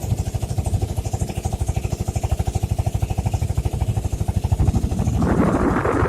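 Motorboat engine running steadily with a fast, even pulse. About five seconds in, a louder rushing noise joins it.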